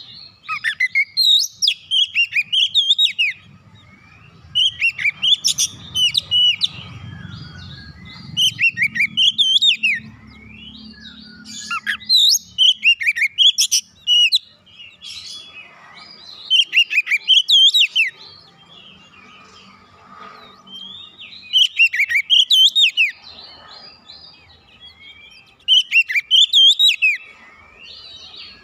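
Oriental magpie-robin singing: loud, varied whistled phrases with quick rises and falls in pitch, each about two seconds long. The phrases repeat about seven times, a second or two apart.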